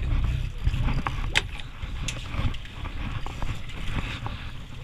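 Steady low rumble on an open fishing boat, with scattered sharp knocks and clicks as fishing gear is handled on deck; the loudest knock is about a second and a half in.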